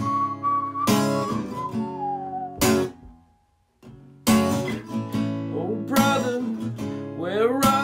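Acoustic guitar strummed with a heavy accented strum about every second and a half and the chords left ringing, the opening of a song. Over the first two seconds a long wordless vocal note slides down. About three seconds in the playing stops for a moment, then the strumming starts again.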